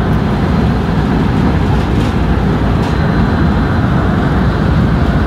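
Running noise of a JR West 223 series electric train at speed, heard inside the lead car (KuMoHa 223-2045): a steady low rumble of wheels on rail, with a faint steady high whine and a few faint ticks.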